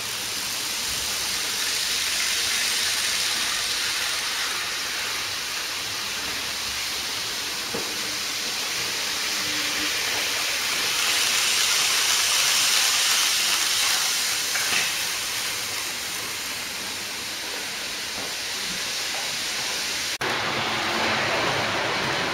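N-gauge model Shinkansen trains running on the layout track: a steady rushing whir of wheels on rail and small motors. It swells as a train passes close, about eleven to fourteen seconds in, and the sound changes abruptly about twenty seconds in.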